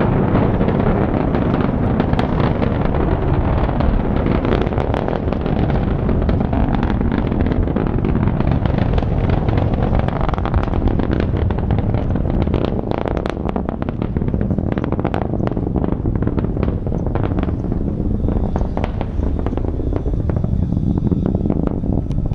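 Distant Delta IV Heavy rocket engines during ascent: a steady low rumble full of sharp, irregular crackles.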